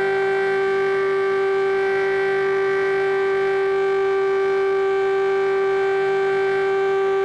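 Chinese air-defence siren sounding one steady, unchanging tone with overtones, holding its pitch and level without wailing.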